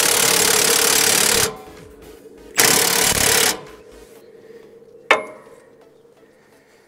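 Cordless impact wrench hammering on the chain tensioner bolt of a manure spreader's floor conveyor, in two bursts, the second shorter, as the conveyor chain is tensioned. A single sharp click about five seconds in.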